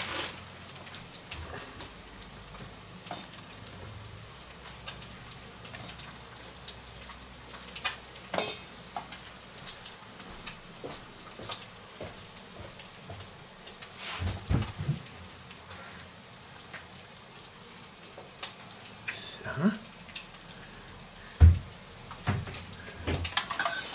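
Steady sizzle of food frying in a pan, with fine crackles throughout. A few soft knocks and handling sounds come through it, the sharpest about three-quarters of the way in.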